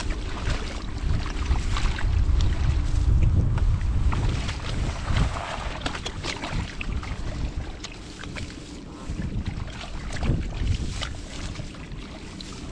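Wind buffeting the microphone, heaviest in the first few seconds, with scattered small splashes and rustles as hands grope through shallow muddy water and grass.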